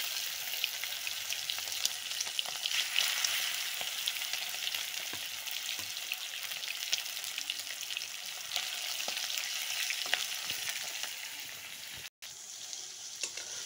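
Masala-coated chicken leg pieces frying in hot oil in a kadai: a steady sizzle full of small crackles and pops, with a brief dropout about twelve seconds in.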